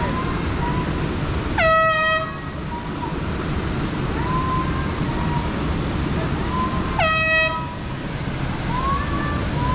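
An air horn blown twice, short blasts about five seconds apart, to scare off a brown bear. Between the blasts, a woman yells at the bear from a distance over a steady low rush.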